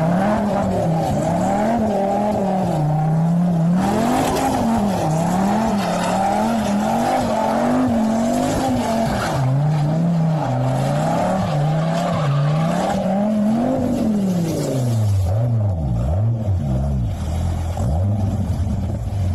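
Dodge Viper's V10 engine revving up and down over and over as the car spins donuts, with tyres squealing and water spraying off the wheels. The revs fall back to a steadier, lower note near the end.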